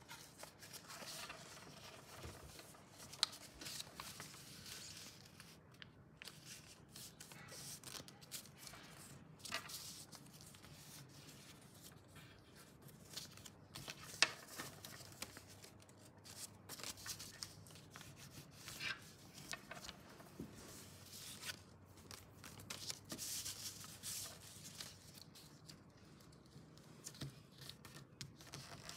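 A sheet of paper being folded and creased by hand on a wooden table: irregular rustling and scraping of the paper, with a few sharp ticks.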